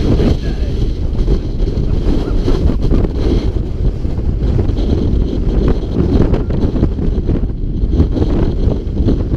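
Strong wind buffeting the camera's microphone: a loud, low rumble that rises and falls in gusts.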